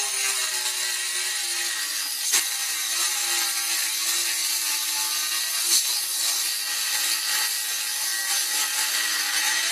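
Small high-speed rotary tool fitted with a 22 mm cutting disc, running with a steady whine while the disc cuts into material with a gritty rasp. The whine sags a little as the disc first bites, and there are two short clicks, about two and a half seconds in and near six seconds.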